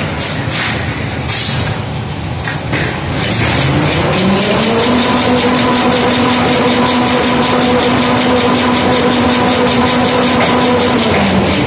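JL-L2200 kitchen-wipe roll production machine running as it winds a roll: a few short hisses, then the drive's hum rises in pitch as it speeds up and holds steady over a fast, even clicking. The hum dips slightly just before it cuts out near the end.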